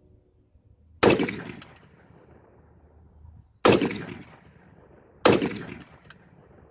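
Scoped rifle fired three times, each shot a sharp crack with a short fading tail. The shots are spaced about two and a half seconds and then a second and a half apart.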